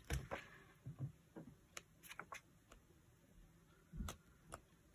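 Faint, scattered small clicks and taps of stickers and planner pages being handled on a desk, about nine in all.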